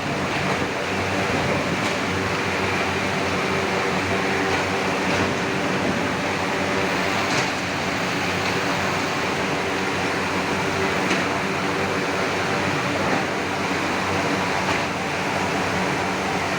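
Steady drone of running industrial machinery, with a few faint knocks every few seconds.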